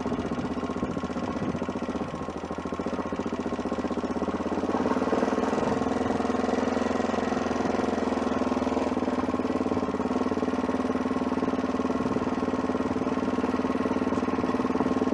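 Adventure motorcycle engine running as the bike is ridden over rough ground, its note growing louder and stronger about four to five seconds in, then holding steady.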